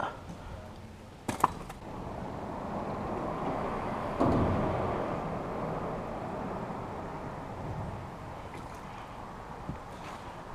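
A vehicle crossing the bridge overhead: tyre noise that builds, jumps suddenly about four seconds in and fades away slowly. A couple of sharp knocks come just before it starts.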